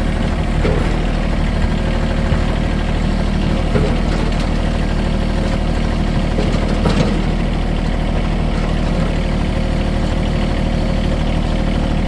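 Small John Deere front-loader tractor's engine running steadily while towing an old manure spreader off a trailer. There is a faint clank about seven seconds in.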